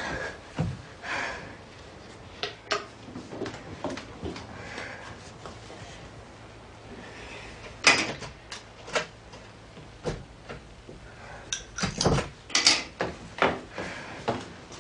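Scattered clicks and knocks of small objects being picked up and set down on a dressing table, with a sharp clatter about eight seconds in and a quick run of knocks around twelve to thirteen seconds.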